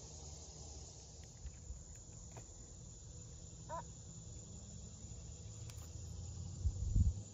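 Faint steady evening insect chorus, like crickets, over a low rumble, with one brief high call about halfway through and a few low thumps near the end.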